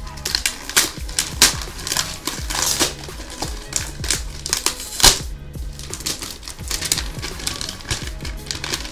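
Gift wrapping paper being torn open and crinkled by hand: a run of sharp rips and crackles, the loudest about one and a half and five seconds in, over background music.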